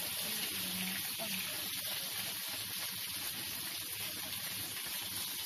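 Chicken pieces frying in hot oil in a steel wok, with a steady sizzle, as they turn golden brown.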